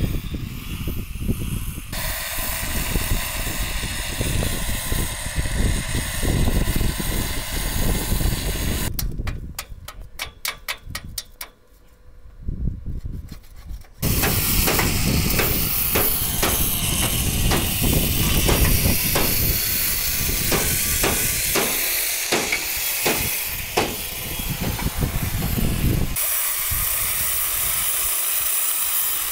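Wind rushing over the microphone, with a run of irregular sharp knocks on metal in the middle part from work on a steel walkway ramp.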